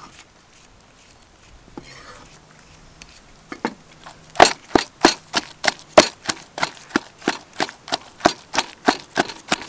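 Wooden pestle pounding chili paste in a wooden mortar. A steady run of sharp knocks, about three a second, starts about three and a half seconds in.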